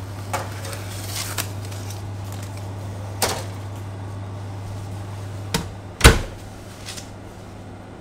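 A cake tin is set onto a metal oven rack with a few light clinks and knocks over a steady low hum from the open, preheated oven. The oven door then shuts with a loud bang about six seconds in, and the hum is quieter after it.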